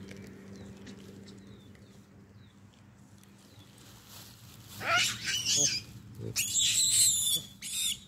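Hamadryas baboons screaming: loud, shrill calls that bend up and down in pitch, in three bouts starting about five seconds in.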